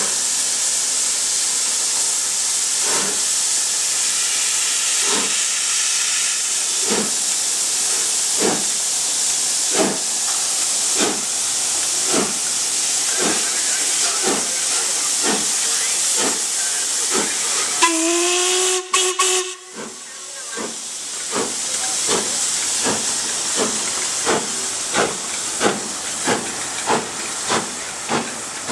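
LMS Princess Coronation class steam locomotive 6233 Duchess of Sutherland pulling away under steam: a steady hiss of steam under the exhaust beats from its chimney. The beats start about a second apart and quicken to around two a second as it gathers speed. About two-thirds of the way through it gives a single whistle blast lasting about a second and a half.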